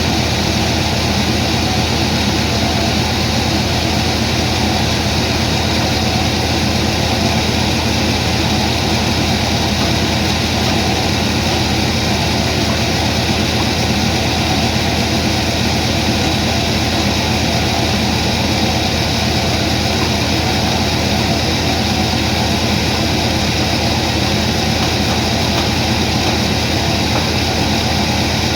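Sawmill machinery's heavy engine running steadily, with an even, unchanging drone and no cut or load change.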